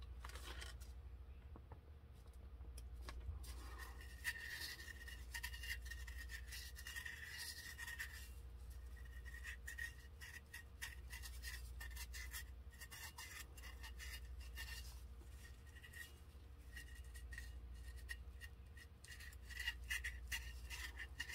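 Gloved fingertips rubbing and pressing glitter onto a tack-it-coated tumbler: faint scratchy rubbing with scattered small clicks and a high squeak that comes and goes, over a steady low hum.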